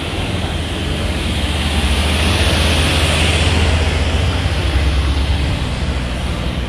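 Cars passing close by, their tyre and engine noise swelling to its loudest in the middle and then fading, over a steady low rumble.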